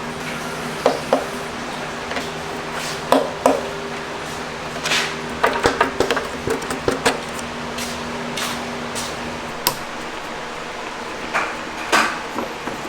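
Scattered sharp clicks, taps and metallic clinks of tools and small parts being handled on a workbench, a cluster of them in the middle and another near the end, over a steady low machine hum.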